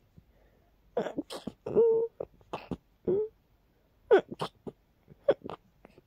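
A person sneezing softly several times in quick succession, with breathy gasps and a short held 'ah' between sneezes, the loudest about two and four seconds in. The sneezing is set off by dust.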